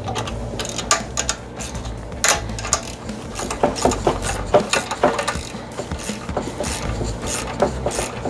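A 13 mm ratcheting wrench clicking in quick, irregular runs as a clamp nut on the seat post is tightened.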